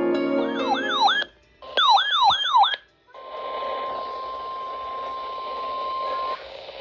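Electronic warbling alarm that swoops down and up about three times a second, in two short bursts. It is followed by the steady 1050 Hz NOAA Weather Radio warning alert tone, held for about three seconds over radio hiss before it cuts off near the end.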